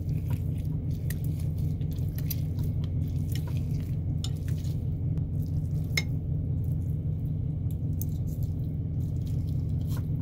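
A metal fork and a wire utensil shredding slow-cooked pork in a ceramic slow-cooker crock: scattered clinks and scrapes of metal against the crock, the sharpest about six seconds in. A steady low hum runs underneath.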